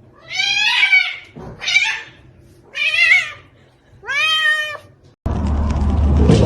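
A cat meowing four times in a row, each meow lasting about half a second to a second. About five seconds in, the sound cuts abruptly to a loud, steady noise.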